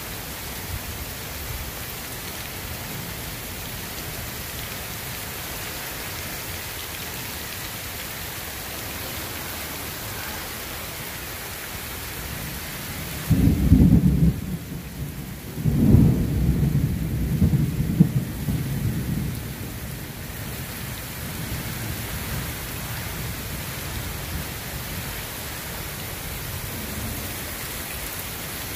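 Heavy rain falling steadily through a night thunderstorm. About halfway through, a thunderclap hits suddenly with two loud peaks a couple of seconds apart, then rumbles for several seconds before fading back under the rain.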